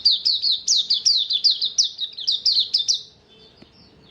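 Songbird of the type kept as an 'auriventer' singing a long, rapid series of repeated falling whistled notes, about seven a second, which stops abruptly about three seconds in; fainter notes of the same kind carry on after it.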